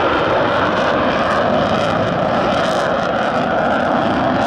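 F-16 fighter jet's engine running as the jet flies past: a loud, steady roar.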